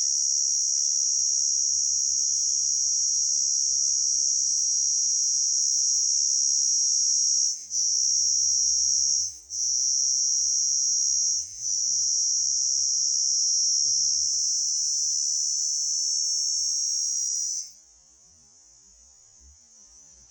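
Loud, continuous high-pitched insect buzz from a rahaiya, which the title calls a cricket. It breaks off briefly three times in the middle, rises a little in pitch, then cuts off suddenly near the end, leaving a faint background.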